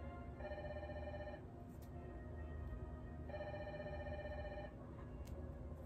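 A telephone ringing twice, about three seconds apart, each ring lasting a second or so.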